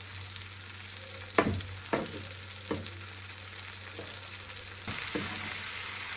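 Red onions, chilies and garlic sizzling steadily in oil in a frying pan, while a kitchen knife knocks about five times on a wooden cutting board as tomatoes are sliced. Near the end the sizzle gets louder as the sliced tomatoes go into the hot pan.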